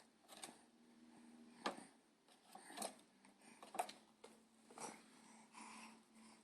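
Faint, sharp clicks, roughly one a second, over a low steady hum.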